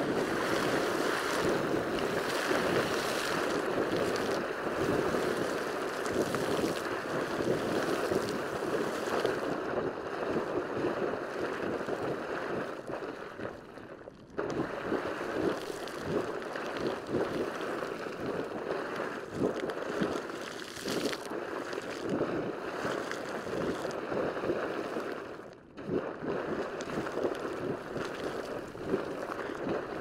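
Vixen Geyser erupting: hot water gushing and splashing in continual surges. It dips briefly about 14 and 25 seconds in before the rush picks up again.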